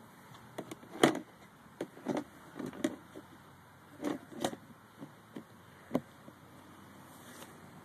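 Irregular rustles and sharp knocks close to the microphone, about a dozen of them, the loudest about a second in: vegetation brushed and the camera handled while filming low over the grass.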